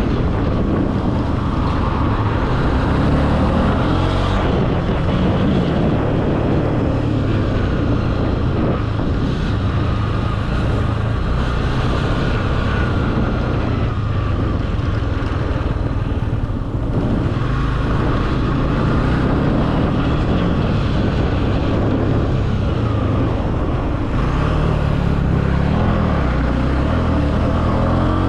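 Honda CB300F's single-cylinder engine running while the motorcycle is ridden, with wind buffeting the microphone. The engine note shifts up and down with the throttle and climbs near the end.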